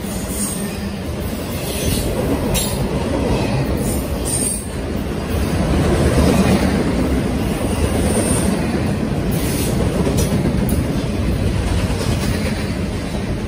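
Double-stack intermodal freight cars rolling past close by, wheels rumbling steadily on the rails. A few brief high squeals and sharp clicks from the wheels come through the rumble.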